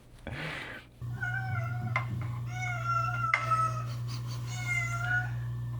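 Domestic cat meowing several times, one call drawn out longer than the rest, over a steady low hum.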